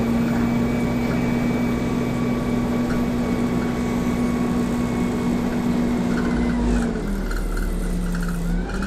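Alexander Dennis Dart single-decker bus under way, heard from inside the passenger saloon: steady engine and driveline drone with a high whine held at a constant pitch, both dropping in pitch about seven seconds in.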